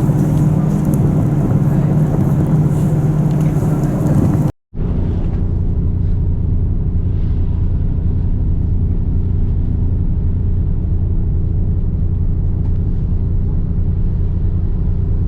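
Steady low engine drone of the sightseeing icebreaker Aurora under way. It cuts off abruptly about four and a half seconds in, and a similar, duller drone carries on.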